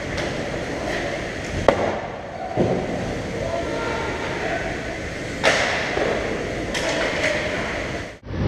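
Hockey game in a rink: a steady rumble of arena noise with sharp clacks and knocks of sticks and puck, five or so scattered through, and the sound cuts out briefly near the end.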